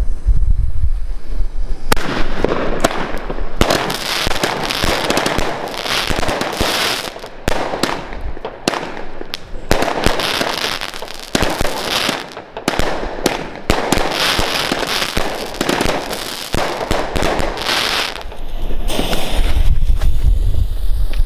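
Aquarius 25-shot fireworks cake (Thor line) firing a quick string of shots and bursts. The volley starts about two seconds in and stops a few seconds before the end. Wind rumbles on the microphone before and after it.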